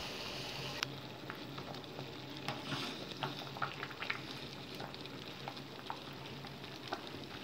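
Basmati rice boiling in water in a steel pot: steady bubbling, with scattered small clicks and scrapes as a steel ladle stirs the rice and lifts some out to check that it is cooked.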